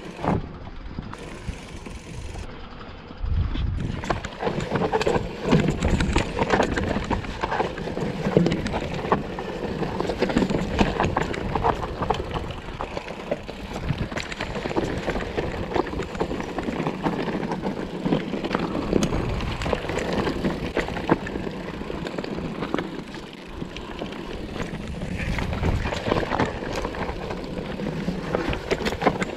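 Mountain bike descending a rough rocky trail: tyres crunching and bumping over rock and loose stones, the bike rattling with a dense, irregular clatter, over a low rumble of wind on the microphone. It gets louder about three seconds in as the bike picks up speed.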